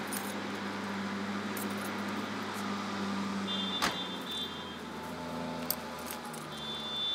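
Nissan Skyline R33 GT-R's RB26DETT twin-turbo straight-six idling through a Tomei Ti Racing exhaust. A car door shuts with a sharp knock about four seconds in.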